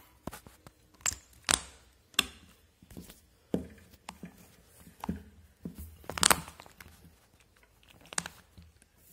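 Handling noise around a tilted-back sewing machine: scattered, irregular clicks, taps and rustles, the loudest about a second and a half in and about six seconds in.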